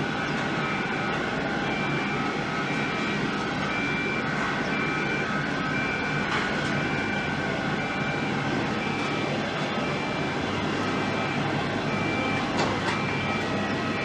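Boeing 767-300ER jet engines running steadily, a continuous roar with a thin steady whine over it. Throughout, a high electronic warning beep from ground equipment repeats evenly a little under twice a second.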